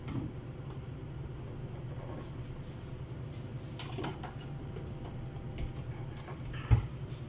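Handling noises from working on an electrosurgical unit and its cable: scattered light clicks and rustles, then one sharp knock near the end, over a steady low hum.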